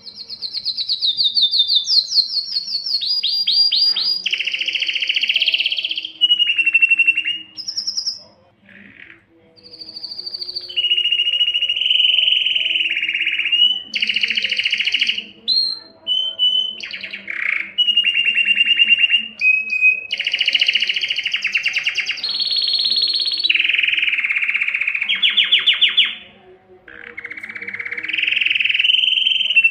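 Male canary singing an excited breeding-condition song: long phrases of rapid high trills and rolls, breaking off briefly a few times.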